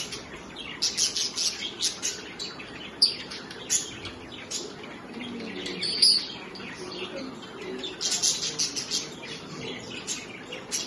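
Pet budgerigars chirping and chattering, with several flurries of quick, sharp chirps.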